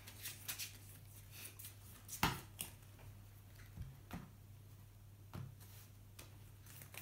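Sleeved trading cards being handled over a playmat: a few soft taps and clicks, with one sharper tap about two seconds in, over a low steady hum.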